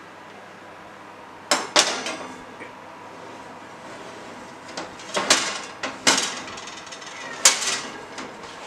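Metal baking trays clattering and scraping against the wire oven racks as they are slid into the oven: a pair of sharp metallic clatters about a second and a half in, then several more between about five and seven and a half seconds in.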